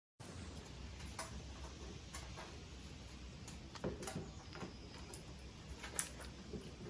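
Scattered metal clicks and knocks of a wrench working on a stuck motorcycle oil filter, the loudest about four and six seconds in.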